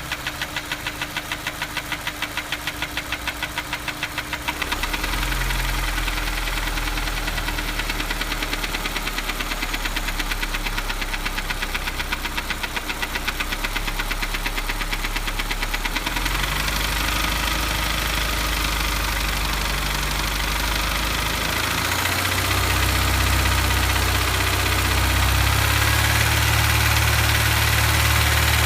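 Honda S2000's four-cylinder engine running with a rhythmic tapping from the engine, a tap that persists after a new cam chain tensioner and whose cause is still unfound. The engine speed steps up a few times.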